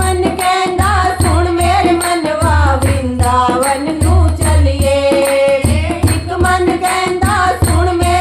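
Devotional bhajan music: singing of a kirtan, with a low drum beat that recurs about every second and a half.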